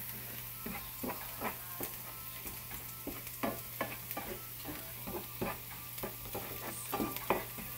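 Chopped onion, ginger, garlic and chili sizzling in oil in a nonstick frying pan while a plastic spoon stirs them, scraping the pan in short, irregular strokes, a couple a second. The aromatics are being sautéed until they start to brown.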